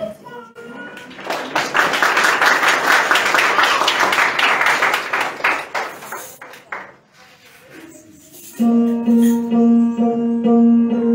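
Audience applauding for a few seconds. About three-quarters of the way through, music starts: a held, steady drone with plucked string notes over it.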